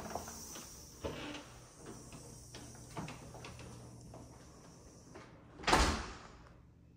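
A house door swung and pushed shut near the end, a brief whoosh with a thud, the loudest sound. Before it come a few light knocks.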